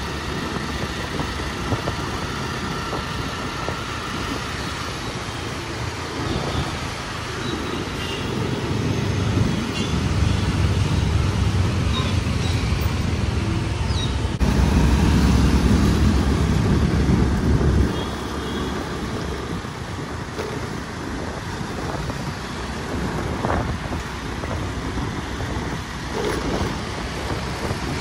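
Road and traffic noise heard from a car driving through city streets: a steady hum of engines and tyres. A louder low rumble builds about a third of the way in and stops abruptly about two-thirds through.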